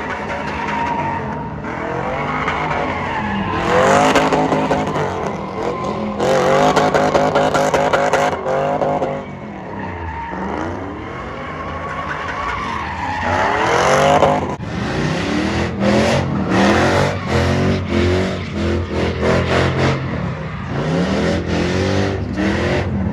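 Truck engines revving, their pitch rising and falling several times, with a run of short revs in quick succession in the second half.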